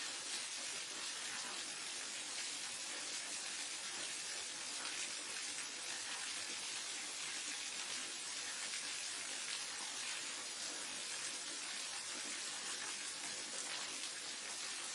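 Steady rush of a waterfall: an even hiss of falling water, with no lulls or separate splashes.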